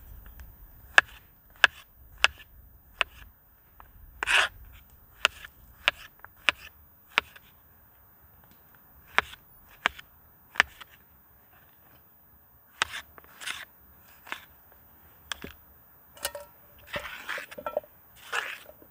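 Irregular sharp knocks and clicks, about a dozen, with a few short scraping rustles between them.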